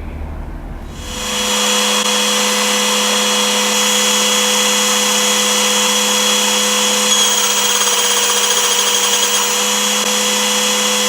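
Steady whirring of a small motor that starts about a second in and holds one pitch.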